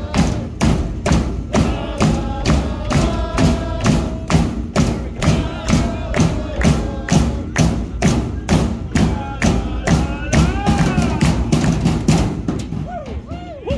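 Supporters' drum beating a steady quick rhythm, about three to four hits a second, under a group of fans chanting. The drumming thins out and stops near the end.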